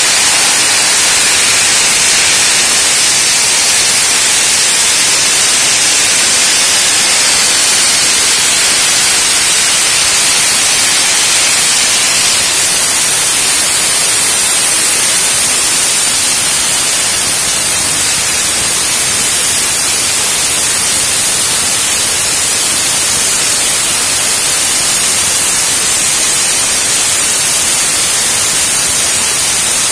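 Sandblasting nozzle blasting abrasive onto metal pipe frames: a loud, steady, even hiss.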